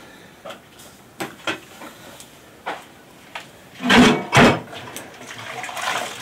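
Clatter of metal cookware: a few light knocks and clinks, then two louder knocks close together about four seconds in as a pot is set into a large metal basin.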